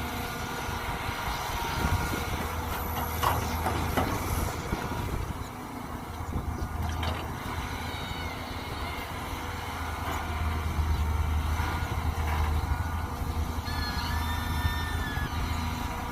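Mini excavator's diesel engine running steadily under load, with a high hydraulic whine that comes and goes several times as the arm and bucket work. A couple of sharp knocks come about three to four seconds in.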